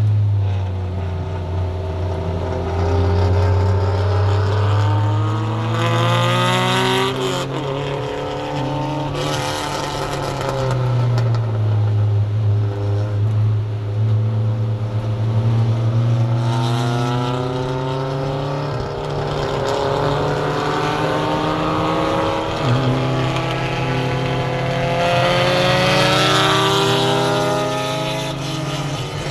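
Mazda Miata race car's four-cylinder engine heard from inside the cockpit, revving up and dropping back again and again as the driver accelerates, shifts and lifts for corners. Several bursts of hiss rise over the engine along the way.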